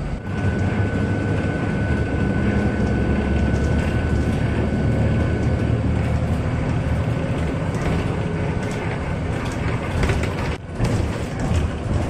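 Steady engine and road noise heard inside a TransJakarta city bus cabin while it drives. A faint steady whine sits over it for the first half, and the noise briefly dips about ten and a half seconds in.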